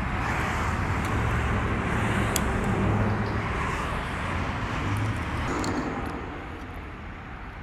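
Road traffic noise: a vehicle going by, swelling then fading after about six seconds, with a few light clicks from handling close by.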